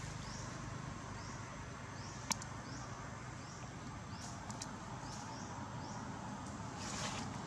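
Outdoor ambience with a short, high, rising chirp from a small animal repeated about every 0.8 seconds, a sharp click about two seconds in, and a brief hiss near the end.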